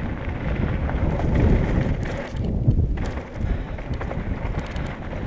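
Wind buffeting the microphone, with a rough rumble of tyres rolling over a gravel and dirt road.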